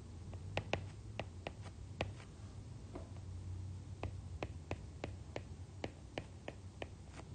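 A stylus tip tapping and clicking on an iPad's glass screen in quick, irregular strokes as letters and numbers are handwritten, over a low steady hum.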